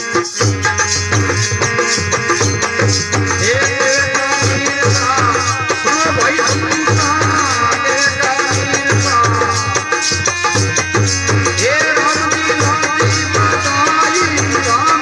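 Live bhajan, devotional folk music: a steady repeating drum beat under a melody that bends and glides.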